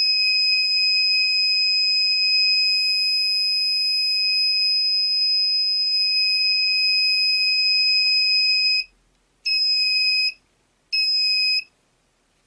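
Piezo buzzer on a breadboard laser-alarm circuit sounding one steady high-pitched tone for about nine seconds, then stopping and giving two short beeps.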